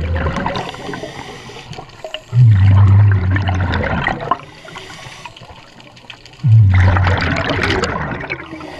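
Scuba diver's exhaled breath through a regulator heard underwater: bubbles rush out in long bursts about four seconds apart, each opening with a low hum, with a softer hiss between them.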